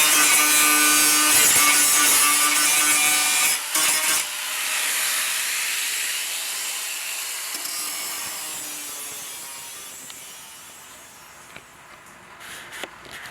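Angle grinder with an abrasive wheel grinding down welded steel patch panels, running hard with a steady motor whine for about four seconds. Then the sound thins to a hiss that fades away over several seconds, with a few light clicks near the end.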